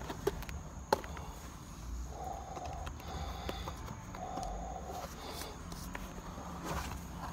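Worn Timberland leather boat shoe knocked and shuffled against a concrete step: two sharp knocks, the louder about a second in, then faint taps and scuffs. Two faint steady tones sound in the middle.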